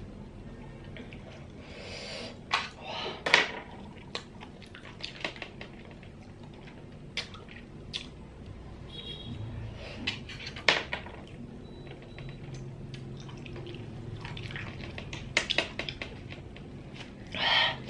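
Close-up eating sounds: small nerite snail shells clicking and clinking as the meat is picked out with a pin, with a few short slurps.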